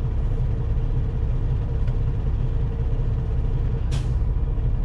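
Semi truck's diesel engine running with a steady low rumble, with a brief hiss about four seconds in.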